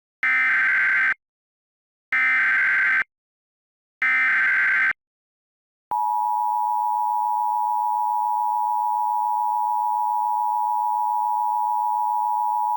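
Emergency Alert System broadcast alert: three short buzzy SAME header data bursts, each about a second long with a second's pause between, then about six seconds in the steady two-tone EAS attention signal starts and holds.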